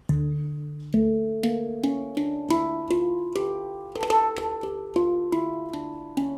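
Handpan tuned to a D Kurd Hijaz scale, played one note at a time: a low ringing ding note first, then single struck notes that ring on and fade, climbing up the scale about two a second and coming back down.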